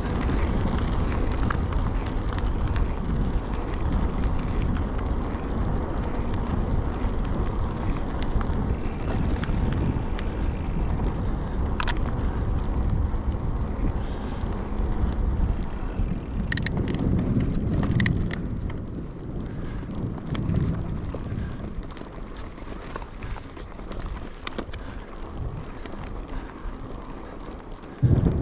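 Wind buffeting the action camera's microphone and tyre rumble from a Calibre Triple B mountain bike being ridden on a trail. There are a few sharp clicks and rattles from the bike over rough ground about halfway through.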